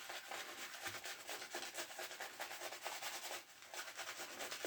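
Shaving brush swirled on a puck of Williams shaving soap to load more lather: a soft, fast, scratchy rubbing that dips briefly about three and a half seconds in.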